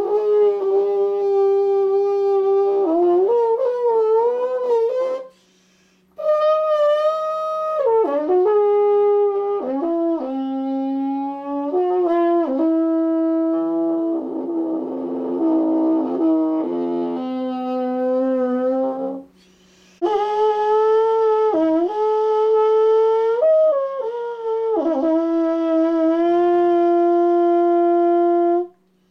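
Soprano trombone playing an improvised solo: held notes joined by sliding glides in pitch, in phrases with short breaks about five seconds in and again past the middle. About halfway through there is a rougher, noisier passage, and the playing stops shortly before the end, over a faint steady low hum.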